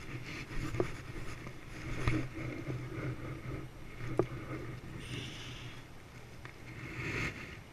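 Water splashing as a hooked fish thrashes at the surface below the rocks, over a steady wash of water, with a few sharp knocks.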